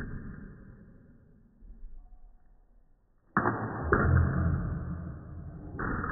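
Table-tennis play with sharp, sudden hits. The loudest comes a little over three seconds in with a smash and is followed by loud, rough noise, with another hit just after and one more near the end.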